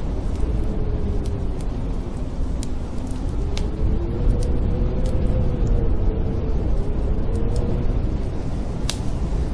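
Snowstorm wind, a steady low rumble with a faint whistling howl that rises and falls, over sparse pops and crackles of a wood fire in a fireplace.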